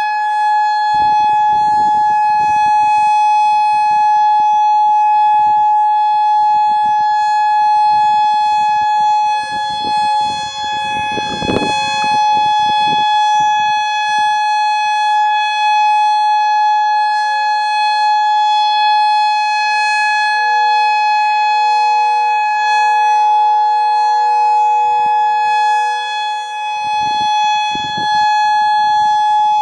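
Federal Signal Modulator 6024 outdoor warning siren sounding a loud, steady tone for its monthly test. Low rumbling comes and goes on the microphone, with a single thump about 11 seconds in.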